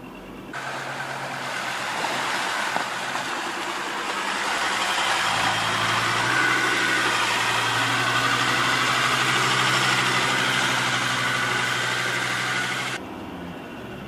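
Mazda BT-50 ute driving on a dirt and sand track: the engine hums under a heavy rush of tyre and wind noise. The noise grows louder over the first few seconds and cuts off suddenly near the end.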